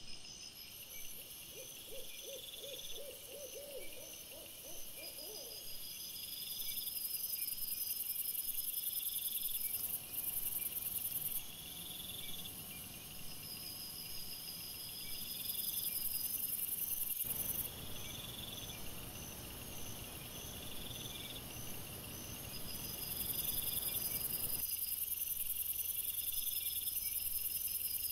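Night insects chirping in steady, regular high-pitched pulses, with a short run of quick hooting notes in the first few seconds, typical of an owl. The background noise changes abruptly three times, where the footage cuts between trail-camera clips.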